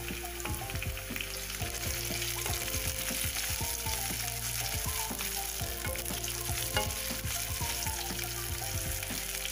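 Chopped onion and red and green capsicum sizzling in hot oil in a kadhai while a spatula stirs them, scraping and clicking against the pan many times.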